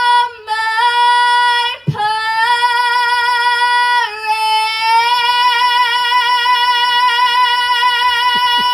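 A woman singing a cappella: a few short phrases, then a long, high held note with slight vibrato from about four seconds in.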